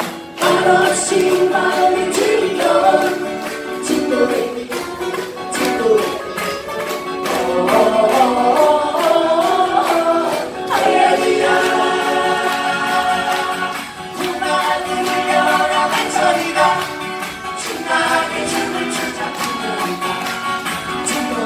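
Acoustic guitar ensemble strumming in a steady rhythm while the group sings together in unison.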